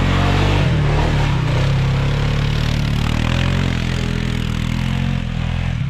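A motor vehicle's engine running steadily, its pitch wavering a little up and down.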